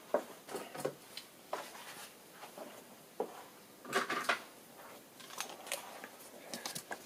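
Irregular light clicks and knocks of tools and parts being handled at a milling machine, with a small cluster of knocks about four seconds in.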